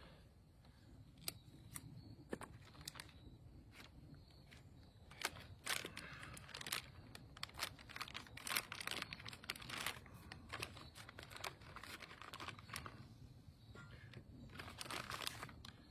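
Crinkling and tearing of a manufactured fire log's wrapper as it is opened and handled: irregular crackles in bunches, busiest in the middle and again near the end.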